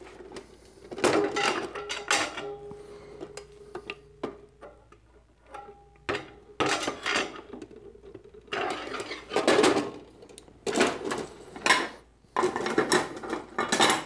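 Metal and plastic parts of a 25-cent toy vending machine head clattering and clanking as it is reassembled, in several spells of knocks and rattles; an early knock leaves a metal part ringing for a few seconds.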